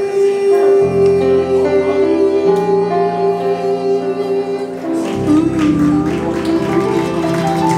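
Live acoustic music: a guitar played with keyboard accompaniment, a long held melody note over steady low chords that change every couple of seconds.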